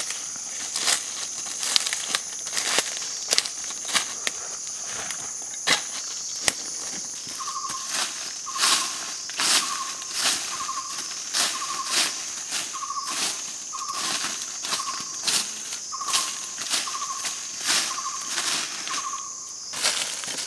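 Dry leaf litter crunching and scraping about once a second under footsteps and hands clearing the ground, over a steady high-pitched insect drone. From about a third of the way in until near the end, a short note repeats a little more than once a second.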